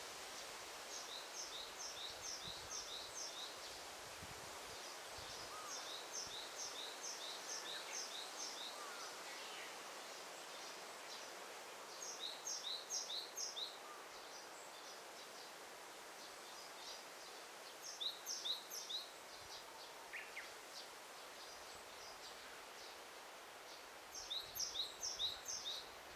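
Daytime forest ambience: a small songbird repeats a short phrase of five or six quick, high, two-part notes about every six seconds, over a steady hiss of forest background such as leaves rustling in the breeze.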